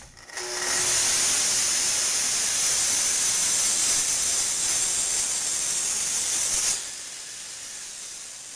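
Festool TS55 track saw running along its guide rail, cutting a sheet panel with a loud, steady, high hiss. It stops abruptly about six and a half seconds in, leaving a fainter hiss.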